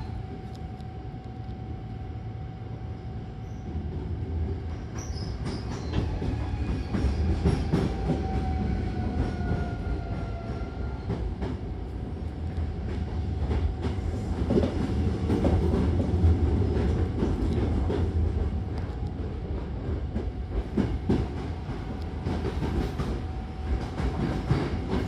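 Hankyu Kyoto Line train running between stations, heard from inside the car by the doors: a steady rolling rumble with scattered rail-joint clicks. A thin steady whine runs through it, and fainter whines slide slowly downward during the first half. The rumble grows louder after about four seconds.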